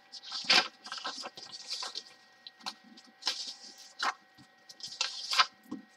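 Sheets of printed paper being handled and flipped over, giving a string of short, sharp rustles.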